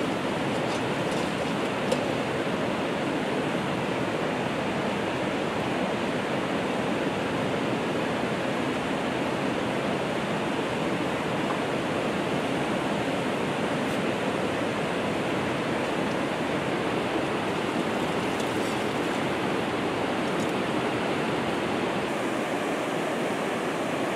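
Steady rushing of a river, an even noise without breaks or changes.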